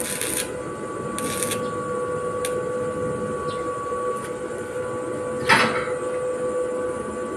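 Stick (arc) welding: the electrode arc crackling and sputtering steadily, with a thin steady hum from the inverter welder, and one sharp knock about five and a half seconds in.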